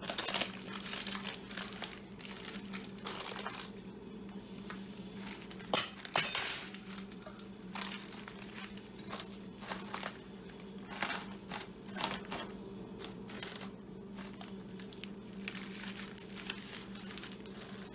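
Plastic cling wrap and parchment paper crinkling as they are folded and tucked by hand, in irregular bursts, loudest about six seconds in. A low steady hum runs underneath.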